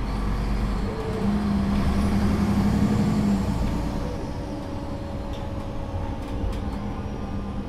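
Solaris Urbino III 12 city bus engine running under way, heard on board. The drone swells over the first few seconds, then drops back about three and a half seconds in to a quieter, steady running note. A few faint clicks come near the end.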